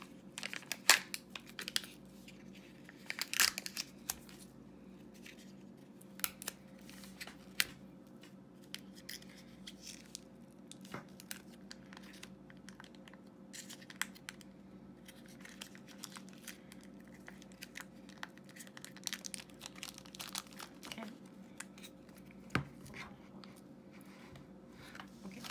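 Sealed lid being peeled and torn off a small plastic toy tub by hand: scattered crinkles and small tearing and clicking sounds, busiest in the first few seconds and sparser after. A faint steady hum lies underneath.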